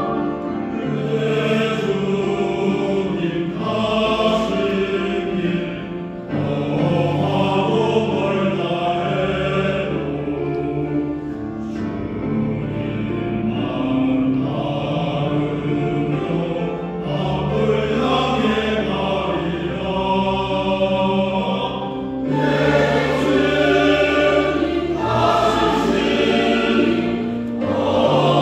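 A church praise team of several singers singing a worship song in unison over keyboard and bass accompaniment, the low notes held and changing every few seconds.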